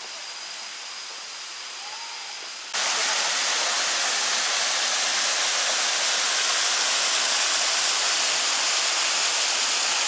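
A waterfall cascading into a pool: a steady, loud rush of falling water that starts suddenly about three seconds in. Before that there is only a quieter open-air hiss with two faint, steady high-pitched tones.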